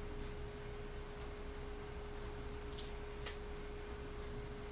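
Quiet room tone: a faint steady pitched tone over a low hum, with two short faint clicks half a second apart about three seconds in.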